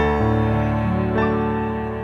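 Slow background music of long held chords, with the notes changing about a second in.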